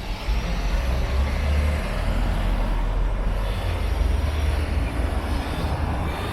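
Road traffic passing close on a city street: steady noise of tyres and engines with a strong deep rumble, swelling about a third of a second in and easing slightly near the end.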